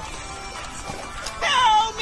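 Background music. About three-quarters of the way through, a loud high note slides down and is then held.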